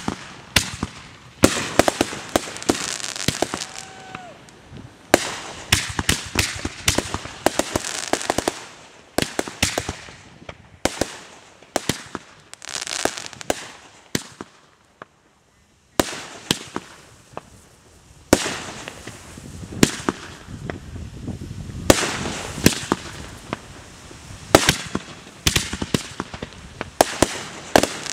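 Many small consumer fireworks and firecrackers going off in quick succession: sharp bangs and dense crackling clusters. The sound drops out for about a second just past the middle.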